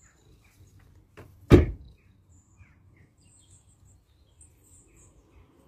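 A sharp thump about one and a half seconds in, just after a smaller knock, against faint bird chirps.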